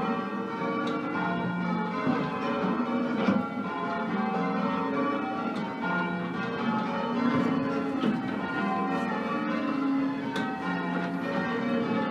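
Ring of ten church bells, a 13 cwt ring in F mixing 1908 Mears & Stainbank, 1948 Gillett & Johnston and 2003 Whitechapel bells, being rung full-circle. The strikes come in a steady, unbroken succession, each note ringing on under the next.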